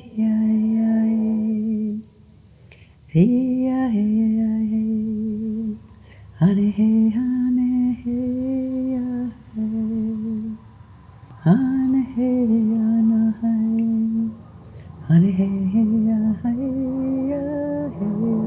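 A woman's voice singing wordless light-language tones: long held notes, each phrase opening with a quick upward swoop in pitch, about five phrases with short pauses between.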